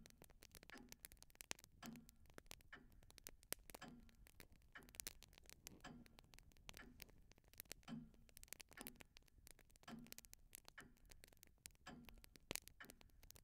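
Faint clock ticking with a steady, unhurried tick-tock, mixed with scattered light crackles.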